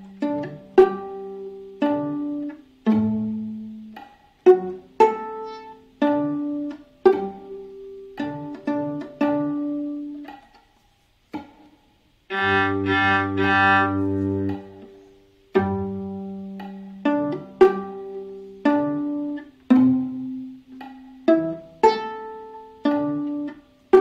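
Viola playing a cello part an octave higher at a slow half-tempo practice pace. Mostly plucked pizzicato notes, about one or two a second, each dying away; a bowed held note comes about halfway through.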